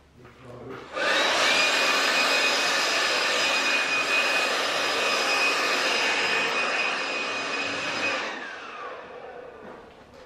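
A handheld cordless electric blower switches on about a second in and runs at full speed with a steady high whine for about seven seconds, then winds down, its pitch falling as it is switched off.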